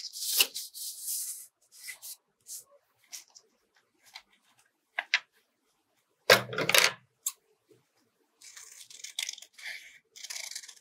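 Green craft paper being handled: a rustle or tear of paper at the start, scattered light ticks, a louder thump of handling about six seconds in, then scissors snipping through the paper near the end.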